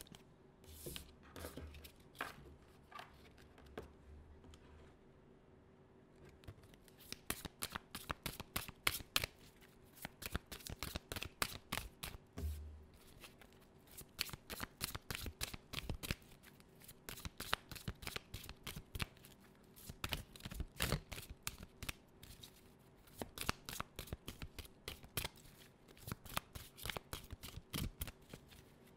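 Tarot deck being shuffled by hand: a few scattered card sounds for the first several seconds, then rapid, steady flicking and clicking of cards from about six seconds on.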